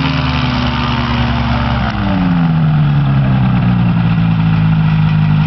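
Light amphibious plane's propeller engine running at taxi power, its pitch dropping a little about two seconds in and then holding steady.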